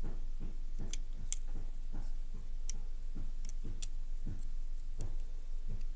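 Sharp plastic clicks and light knocks as a Plarail toy train is handled and turned over, over a regular soft ticking of about three beats a second.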